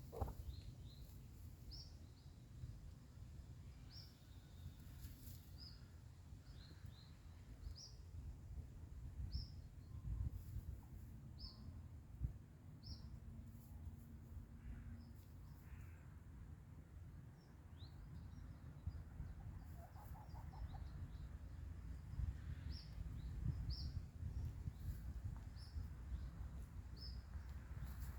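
Small birds chirping, short high notes repeated every second or so, over a low, uneven background rumble.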